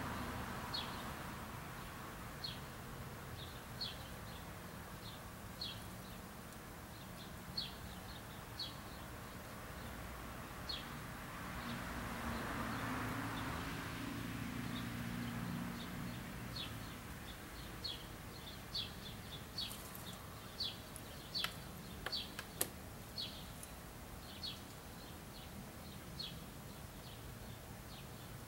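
A small bird chirping over and over, short high chirps spaced unevenly about once a second. Midway a broad swell of road noise rises and falls, and a few sharp clicks come about two-thirds through.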